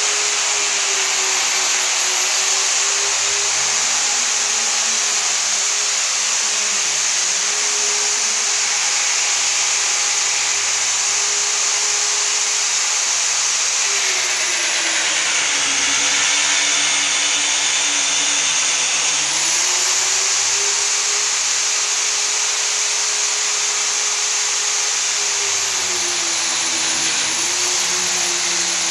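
Handheld electric polisher running continuously on a stainless steel handrail: a steady motor whine over a strong hiss. The pitch sinks about halfway through, holds low for a few seconds and climbs back, then sinks again near the end, as the motor slows under load against the rail.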